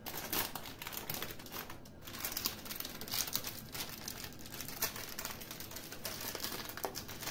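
Baking parchment paper crinkling as it is peeled away from the sides of a freshly baked sponge cake, with irregular small crackles throughout.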